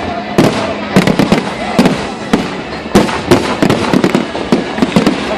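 Aerial fireworks going off in a dense, irregular barrage of sharp bangs, several a second.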